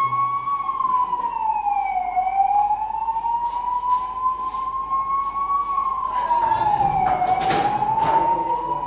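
Emergency siren wailing in slow cycles, its pitch falling and rising twice. A short noisy burst cuts in about three-quarters of the way through.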